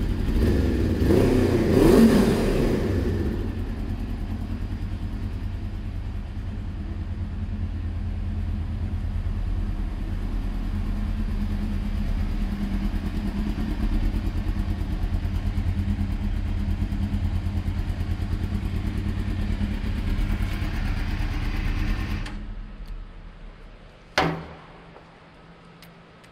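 2000 Suzuki GSX-R600's inline-four engine blipped once on the throttle about two seconds in, then idling steadily before it is switched off and dies away near the end. A single sharp click follows a couple of seconds after it stops.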